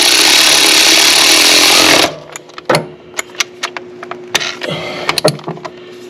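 Cordless ratchet running for about two seconds, tightening a pulley nut, then stopping suddenly. Scattered clicks and clinks of tools and metal parts follow, over a faint steady hum.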